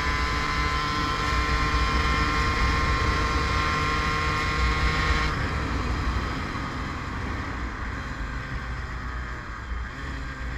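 Yamaha DT 50's small two-stroke single-cylinder engine running under throttle on the move, its pitch climbing slightly. About five seconds in the engine note falls away abruptly, leaving wind and road noise.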